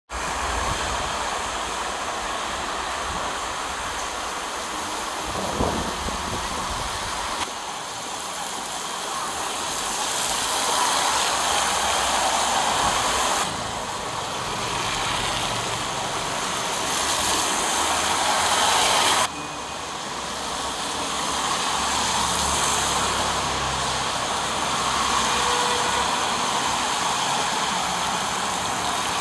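Street traffic noise: a steady hiss of passing vehicles, changing abruptly three times as the footage jumps between clips.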